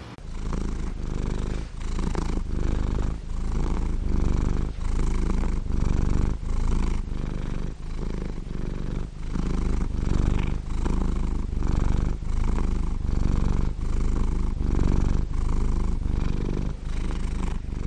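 A cat purring close up, steady and pulsing with each breath about once a second.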